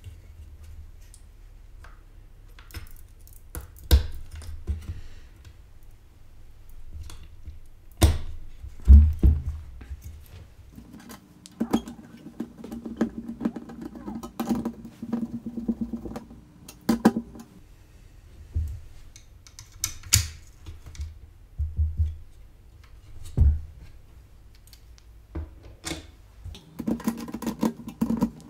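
Hands working on a bare motherboard: a heatsink being pressed onto the chipset and screws driven into the Slot 1 retention bracket with a hand screwdriver, giving scattered clicks, taps and knocks, the sharpest about 4, 8 and 9 seconds in. A low steady hum sounds for a few seconds in the middle and again near the end.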